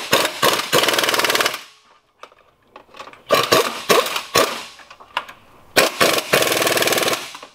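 Impact wrench running in three bursts of rapid hammering, each about a second and a half long, driving in the bell housing bolts that bolt the transmission to the engine.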